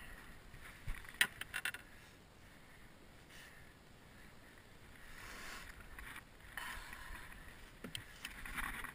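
Quiet handling of fishing tackle with a few light clicks about a second in. Then several short hisses from a small aerosol can sprayed onto a soft-plastic tube lure, the last one near the end.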